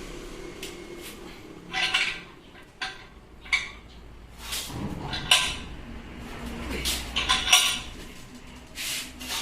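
Metal parts clinking and scraping as they are handled, in a run of irregular sharp clanks, several of them loud, while a rotary hammer is taken apart.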